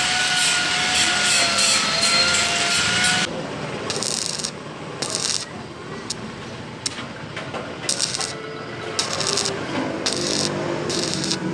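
Stick (shielded metal arc) welding on steel plate: the electrode's arc crackling steadily for about three seconds, then in short separate bursts as the arc is struck and broken again.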